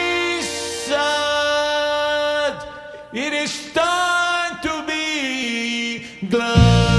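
Background music: a melody of long held notes that slide from one pitch to the next over sparse backing. A heavy bass and beat come in near the end.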